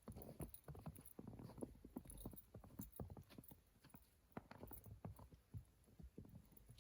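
Faint footsteps of a hiker walking on a snowy trail, a few uneven footfalls a second.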